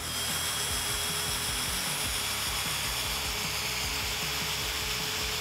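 Bosch GSB 18V-50 brushless cordless drill running steadily in reverse, backing a long wood screw out of a wooden beam, with an even motor whine.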